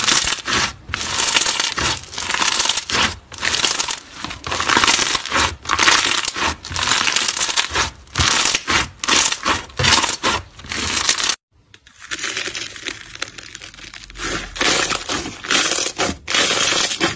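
Slime being squeezed and pressed by hand: a run of wet, crackling squishes coming in quick irregular bursts. It cuts out abruptly about eleven seconds in, then goes on more quietly with smaller crackles.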